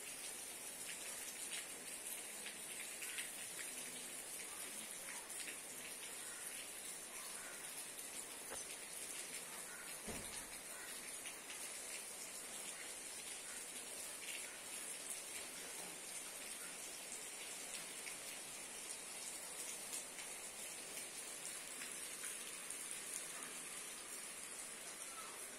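Light rain pattering steadily, with scattered small drips over a constant high hiss.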